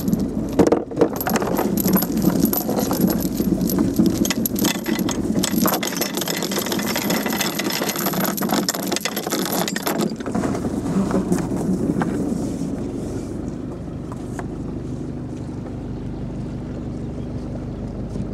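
Noise on board a motorboat: dense rattling and knocking over a low hum for about ten seconds, then easing to a quieter steady hum.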